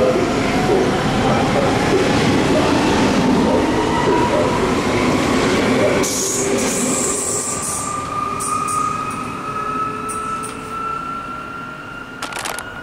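S-Bahn Stuttgart electric multiple unit pulling away and accelerating past, its traction motor whine rising steadily in pitch, the rumble fading as it leaves after about six seconds. A few sharp clicks near the end.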